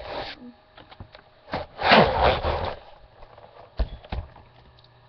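Handling noise from a webcam being moved by hand: a loud rustle about two seconds in, then two sharp knocks near the end.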